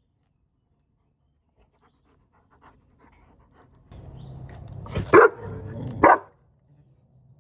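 Akita dog barking twice in play, about five and six seconds in, over a low, steady grumbling noise that starts about four seconds in.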